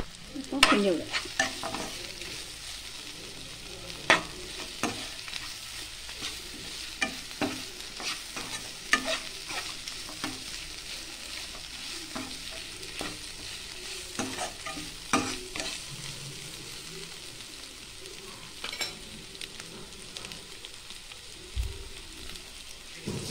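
Mutton chukka frying in a kadai with a steady sizzle, stirred and scraped by a perforated steel spatula. The spatula knocks and clicks against the pan throughout, most sharply in the first couple of seconds.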